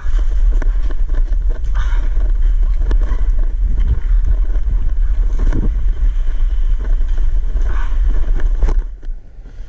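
Steady low rumble of wind and handling noise on the microphone, with scraping and knocking of gear and equipment as a player squeezes through a hole in a wall. It eases off near the end.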